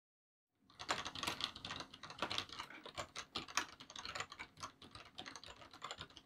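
Fast typing on a computer keyboard, a dense clatter of keystrokes that starts after a short silence about half a second in and keeps going without a break.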